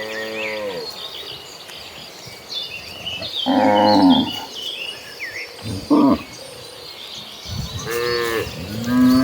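Cattle mooing: several separate moos from the herd, a loud one about three and a half seconds in, a short one around six seconds, and a long one starting near the end. High, thin chirping goes on faintly behind them.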